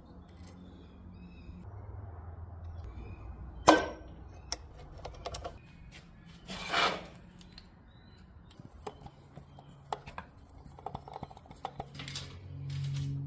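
Scattered clinks and clicks of metal tools and chainsaw parts being handled during clutch-drum cleaning, with a sharp click about four seconds in and a short noisy sweep near seven seconds, over a faint low hum.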